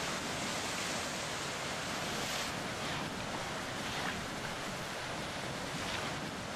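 Sea ambience: a steady wash of waves with wind.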